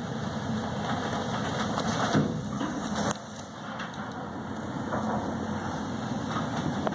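Wind buffeting the microphone above a rough, breaking sea: a steady rushing rumble that drops suddenly about three seconds in.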